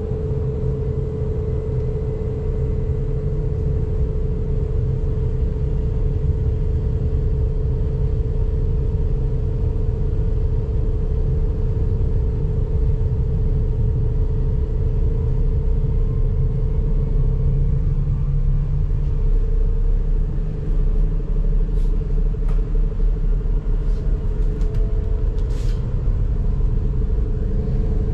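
Inside an electric S-Bahn train pulling out of a station and running on: a steady low rumble of wheels on the track with a constant hum over it. A few sharp clicks come in the last few seconds.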